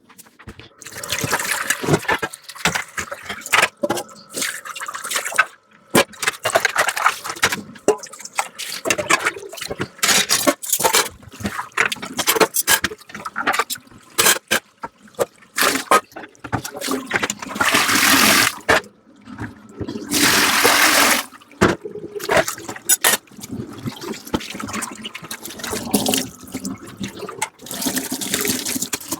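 Dishes being washed by hand at a kitchen sink: tap water running and splashing in irregular spells, with frequent clinks and knocks of dishes. Two longer, louder runs of water come in the second half.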